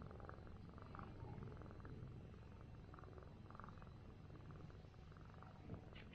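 Orange domestic cat purring softly and steadily, a content purr while it is stroked and massaged. A faint click comes near the end.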